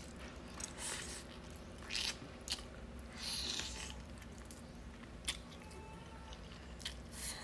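Close eating sounds: a person biting and chewing meat off a stewed chicken drumstick, with scattered wet mouth clicks and a brief sucking sound about three seconds in as the meat is pulled from the bone.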